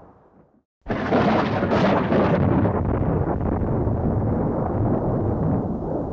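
Thunder sound effect: a sudden sharp crack that breaks into crackling for a couple of seconds, then a long rolling rumble that slowly dies away. It starts abruptly from dead silence about a second in, after the previous rumble has faded out.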